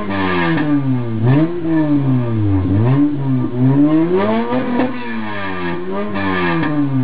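Acura TL's 3.2-litre V6 revved repeatedly through an aftermarket dual exhaust, heard at the tailpipes. The pitch climbs quickly with each blip of the throttle and falls back as the revs drop, about five times.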